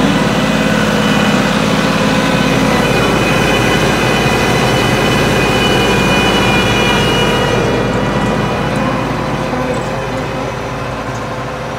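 New Holland 5500 tractor's diesel engine working under load, pulling a super seeder through stubble field, with a steady high whine over the engine note. The sound grows somewhat quieter and duller near the end.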